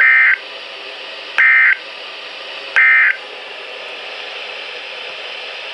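Emergency Alert System end-of-message data bursts on NOAA Weather Radio: three short, loud digital squawks about a second and a half apart, signalling that the alert has ended. Steady radio hiss fills the gaps between them.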